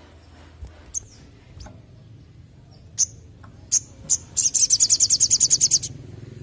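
Male olive-backed sunbird (sogon) calling: a few single sharp, high chirps, then in the second half a fast, high rattling trill of about a dozen notes lasting around a second and a half.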